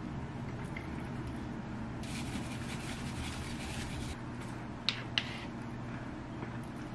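Sesame seeds shaken from a glass shaker onto a plate, a dry rattling hiss lasting about two seconds. Two sharp clicks follow about five seconds in, over a low steady hum.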